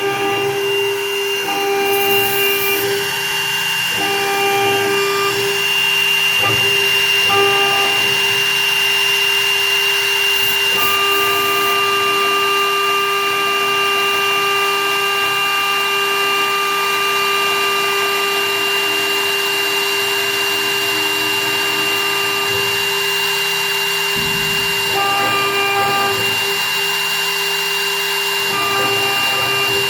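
Small CNC ring-milling machine running: a steady high spindle whine, with extra motor tones that switch on and off every second or so as the machine's axes move.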